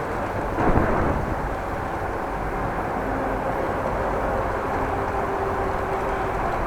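Wind buffeting an action camera's microphone while cycling, a steady low rush with a louder gust about a second in. A faint steady hum comes in over the second half.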